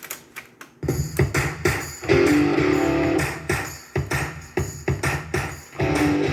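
A few mechanical clicks, then guitar music starts about a second in, played back from the Technics RS-TR165 cassette deck through speakers.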